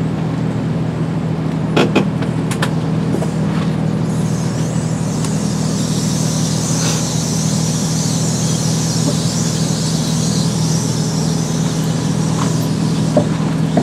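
Hydraulic bedroom slide-out of a motorhome moving under power, with a steady pump hum. There are a couple of clicks about two seconds in, and a high-pitched hiss from about four seconds in until near the end.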